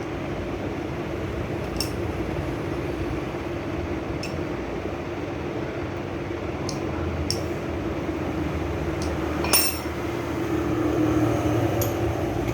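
Several light metallic clinks of a spanner and brass tap parts being handled, the loudest about halfway through, over a steady background hum.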